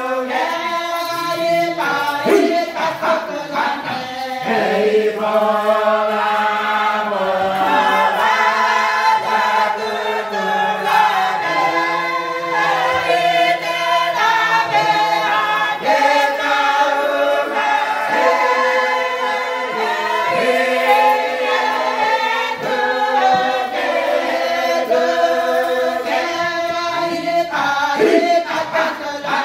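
A group of voices singing together in harmony, with long held notes.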